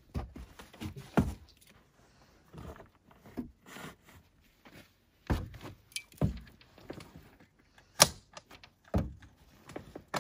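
Irregular knocks, thumps and rustling from a rooftop tent being folded down and its sides tucked in by hand against the roof rack, with one sharp knock about eight seconds in.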